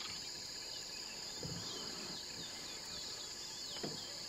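Steady shrill chorus of insects in the reeds, with a run of short falling chirps through the middle and a faint even pulsing underneath.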